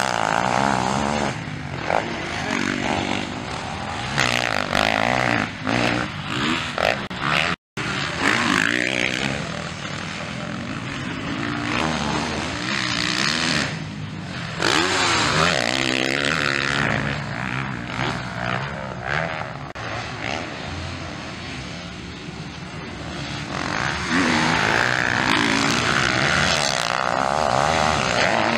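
MX1 motocross dirt bikes racing, their engines revving up and down through gear changes as they pass. The sound cuts out briefly about eight seconds in.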